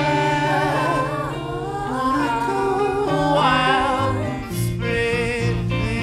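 Background music: a song with a singing voice over instrumental backing.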